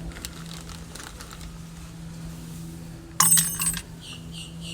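A small metal part clinks with a short, bright metallic ring about three seconds in, over a steady low hum.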